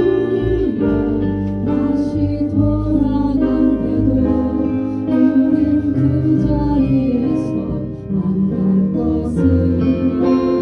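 A live band playing an instrumental passage between sung verses: sustained chords over a moving bass line.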